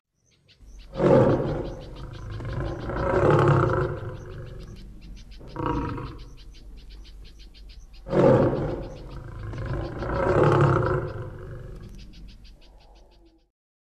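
Asiatic lion roaring in two long bouts, each opening with a loud roar that runs on into a series of weaker grunting roars, with one short roar between the bouts.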